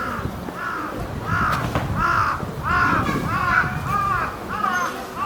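A rapid series of harsh bird calls, about ten short caws at roughly two a second, growing louder after about a second. Strong wind rumbles on the microphone underneath.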